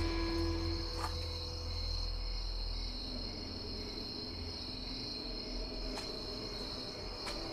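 Crickets chirping in a steady, unbroken night chorus, over a low rumble that fades about two seconds in.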